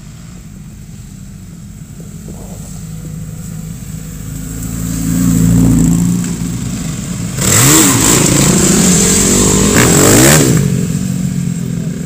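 A group of motocross dirt bikes approaching and riding past close by, their engines revving up and down. They are loudest from about seven and a half to ten and a half seconds in, as they go by.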